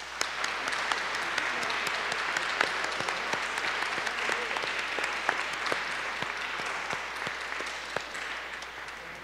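Congregation applauding in welcome: many people clapping, starting all at once, holding steady, then thinning out and fading near the end.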